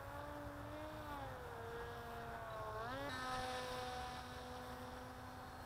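Electric motor and propeller of the Assassin RC flying wing whining faintly in flight. Its pitch sags, climbs sharply about three seconds in, then holds steady.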